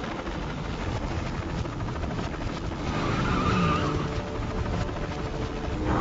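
Car chase sound effects played backwards: car engines and skidding tyres running in reverse, with a few gliding tones near the middle.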